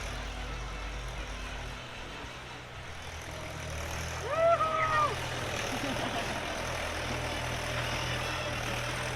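A motor engine runs steadily with a low hum. About four seconds in, a single pitched call, like a shout, rises, holds for about a second and falls away.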